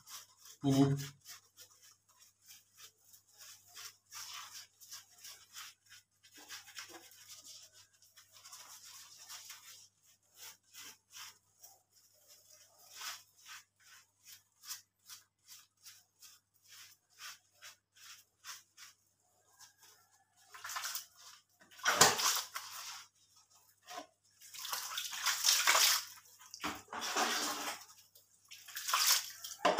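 A bristle brush scrubbing a wet, soapy puppy's coat in short quick strokes, about three a second. In the last third, water is poured over the puppy from a bucket in several splashing pours, rinsing the lather off.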